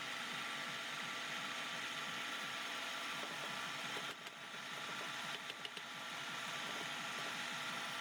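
Steady whir of a running machine motor, with a brief dip about four seconds in and a few light clicks shortly after.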